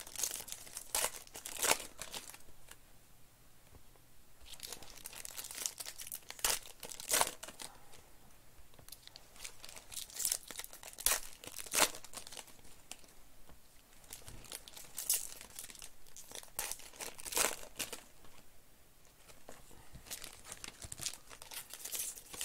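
Foil wrappers of Panini Prizm Baseball card packs crinkling and tearing as they are ripped open by hand, in repeated bursts of crackling with short pauses between.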